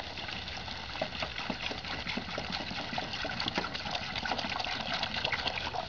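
Water pouring from a plastic gallon jug into a canvas-like ditty bag: a steady splashing pour with many small drips and splashes.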